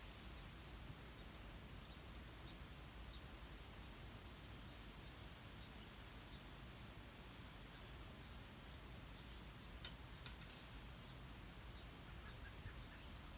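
Faint, steady high-pitched chirring of field insects, with two small clicks about ten seconds in.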